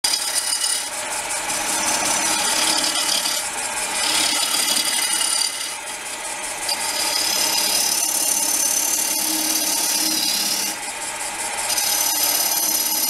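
A 370 W wood lathe is running while a homemade cutter ground from a drill bit cuts a recess into the end grain of a spinning ash bowl blank. The cut is a continuous rasping scrape over the steady hum of the lathe, and it eases off briefly about six and about eleven seconds in. The cutting is done with the tool's right edge, which cuts noticeably worse.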